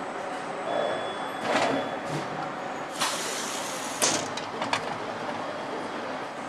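Engine assembly-line machinery running steadily, with a hiss lasting about a second around the middle, then a sharp clack and a couple of lighter clicks.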